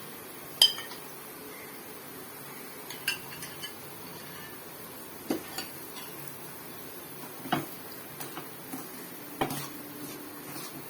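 A spoon clinking and knocking against a pot while rava laddu mix is stirred with hot ghee, about five sharp clinks spaced a couple of seconds apart.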